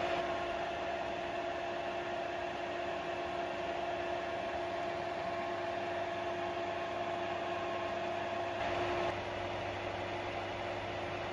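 Metal lathe turning down a 35 mm steel shaft: the lathe's drive runs with a steady whine under the hiss of the tool cutting the steel. About nine seconds in the sound swells briefly, and after that the higher part of the whine fades.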